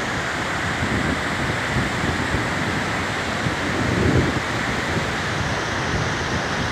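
Large waterfall in full spate, swollen with snowmelt, rushing over rocks in a steady, unbroken noise. Low gusts of wind buffet the microphone, strongest about four seconds in.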